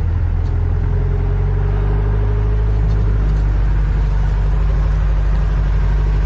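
Vehicle engine running steadily with a deep, even rumble while driving.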